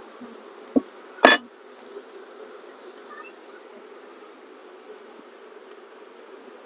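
Honeybees buzzing steadily from an open hive, with two sharp knocks just over a second in, the second louder, as a metal hive tool pries a wooden frame loose.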